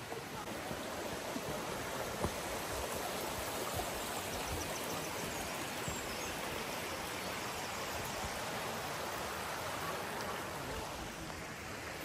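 Shallow woodland stream running over stones: a steady rush of water.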